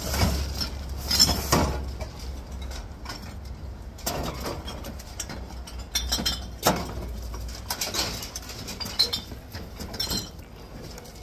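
Empty plastic water bottles and drink cans being handled in a plastic recycling bin, clattering and crinkling in irregular knocks and clinks. A low steady hum underneath stops about two-thirds of the way in.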